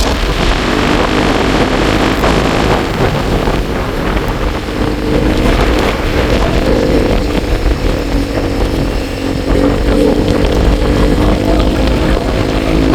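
A vehicle's engine running at a steady speed while driving, under heavy wind rush on the microphone; the engine's hum comes up more clearly from about halfway through.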